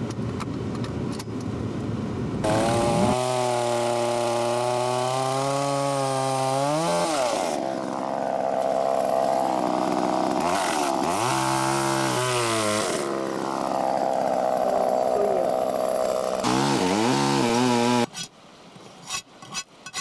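Petrol chainsaw running and cutting through a log, its engine pitch rising and falling several times as it is revved. It stops suddenly near the end.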